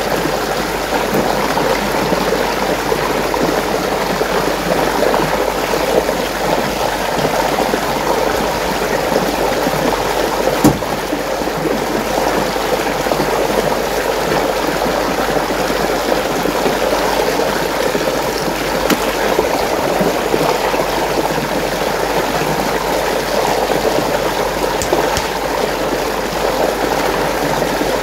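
Water flowing and swirling steadily in a whirlpool, with one sharp knock about ten and a half seconds in.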